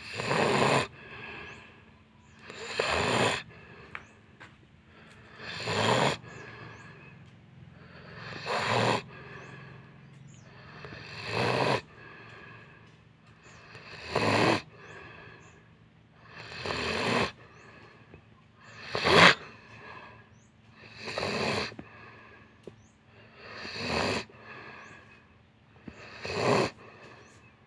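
Steady snoring in deep sleep, one loud snore about every two and a half seconds, with quieter breathing between.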